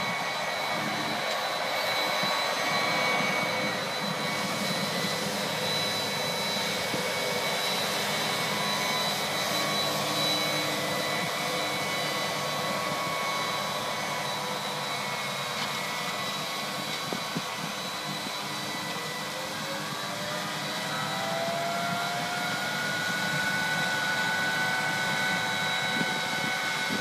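John Deere tractor's diesel engine running steadily under load while pulling a 44-foot Orthman planter, a continuous drone with high whines over it. About twenty seconds in, one whine rises in pitch.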